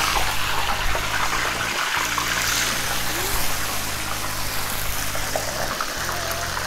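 A whole batter-coated rotisserie chicken deep-frying in a pan of hot oil: steady, vigorous sizzling and bubbling as the wet batter hits the oil.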